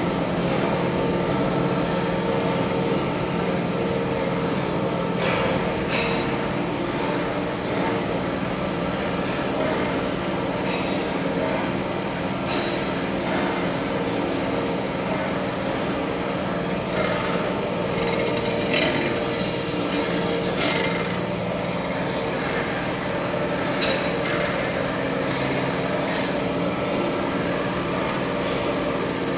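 Large engine lathe running, its motor and gear drive giving a steady mechanical hum with several tones as a heavy steel cylinder turns in the chuck. Occasional short clicks and light knocks sound over it.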